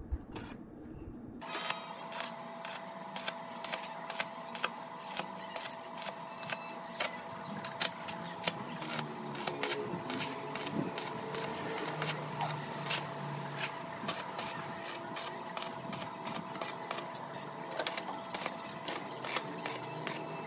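Stick (arc) welding on galvanized square steel tube: the arc crackles and sputters continuously, with a steady hum underneath. It starts suddenly about a second and a half in.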